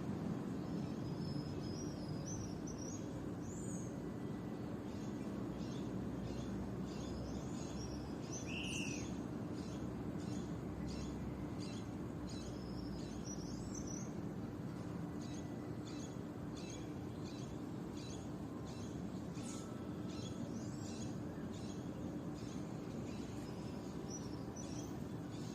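Small birds chirping and twittering in quick, short high calls, with one lower call about nine seconds in, over a steady low background rumble.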